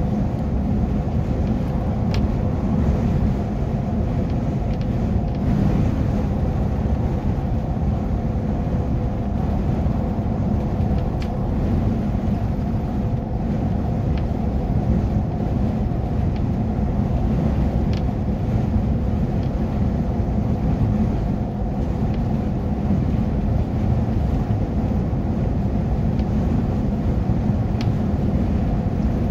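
Steady engine drone and tyre rumble of a vehicle cruising at motorway speed, with a few faint clicks.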